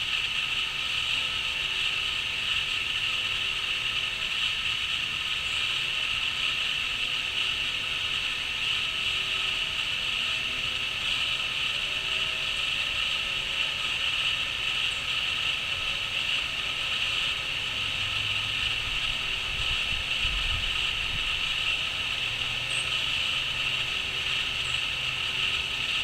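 Crickets chirping in a steady, unbroken chorus.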